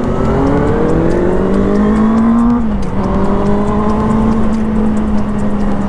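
Benelli TNT 600i's 600cc inline-four engine pulling with revs rising for nearly three seconds, then dropping sharply and running steadily, over low wind rumble.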